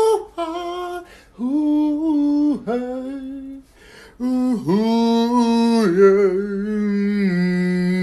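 A man humming a tune wordlessly, in several held notes grouped into short phrases with brief pauses between them.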